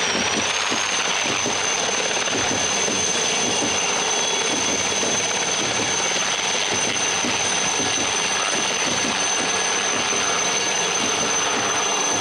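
Helicopter flying low and slowly overhead: a steady turbine whine over the fast chop of the rotor blades.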